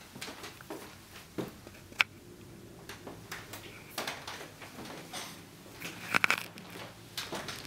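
Scattered soft rustles and taps from sheer curtains being pushed aside, camera handling and footsteps on a parquet floor, with a sharp click about two seconds in and a cluster of louder taps about six seconds in.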